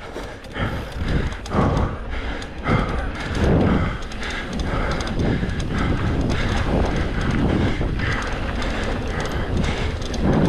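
Mountain bike riding down a rough trail, the frame and chain rattling with a run of irregular knocks over bumps, over a steady rumble of tyres and air.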